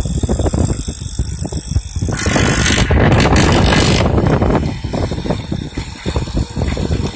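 Wood mortising machine running, its chisel cutting into wood with a dense rattling and knocking. It grows louder and brighter from about two to four seconds in.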